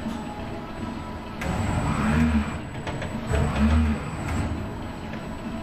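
ABB industrial robot arm's joint motors whirring as the arm moves, swelling twice with a short rise and fall in pitch over a steady low hum.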